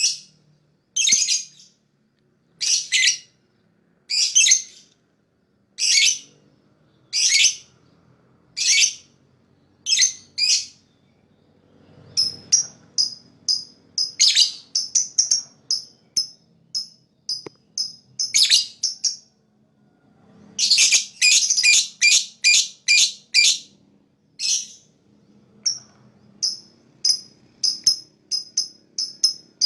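Lovebird calling with loud, harsh, high chirps. For the first ten seconds or so they come in pairs about every second and a half. After that they turn into quicker short chirps, several a second, broken by dense runs of rapid chattering.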